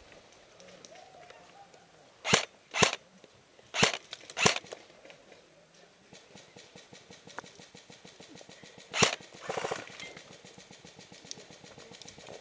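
Airsoft rifle firing single shots: four sharp snaps over about two seconds, then one more about four seconds later, followed at once by a short rapid burst.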